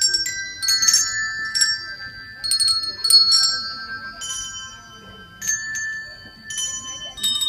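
A set of children's coloured handbells rung one after another, each sharp strike ringing on as a clear tone, the pitches changing from note to note as a simple tune. There is a short lull a little after the middle.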